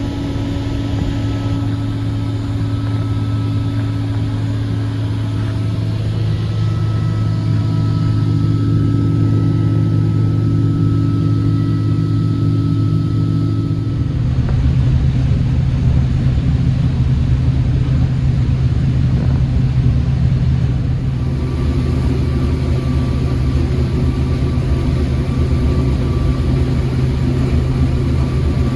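Combine harvester running steadily while harvesting corn, a loud, continuous machine drone with several held tones. About halfway through, the drone drops to a deeper, heavier pitch, and it shifts again near the end.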